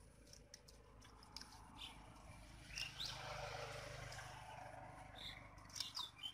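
Soft rushing and squelching of hands scooping wet mud and muddy water, loudest from about three to five seconds in, with scattered small clicks. A few short, falling bird chirps come around three seconds in and again near the end.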